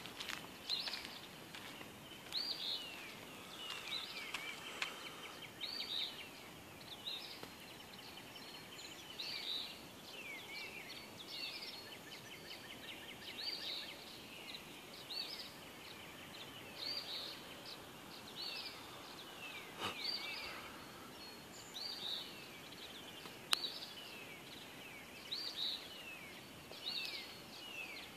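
Dawn chorus of several songbird species: short notes sweeping down in pitch, repeated every second or so, over trills and other songs. A single sharp click about two-thirds of the way through.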